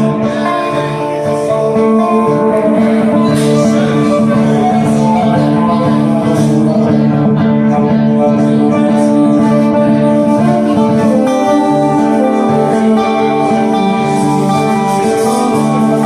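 Acoustic string band playing an instrumental break: acoustic guitars with upright bass, the notes held and ringing steadily.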